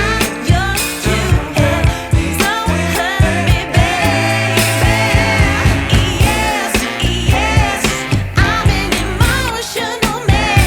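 Background pop song with a singing voice over a steady beat and bass line.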